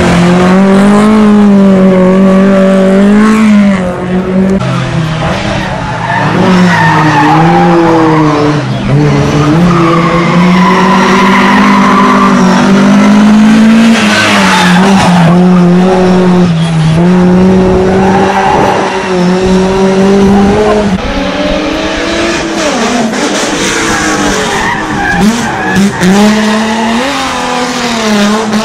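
Classic rally cars on a hillclimb, engines revving hard. The engine pitch climbs and drops again and again through gear changes and corners, with tyres squealing in the bends.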